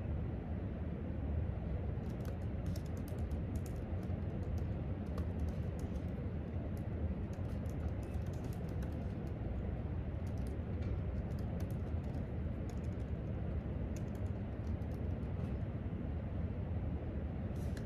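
Typing on a laptop keyboard: irregular runs of light key clicks start about two seconds in and stop shortly before the end. Under them runs a steady low room hum.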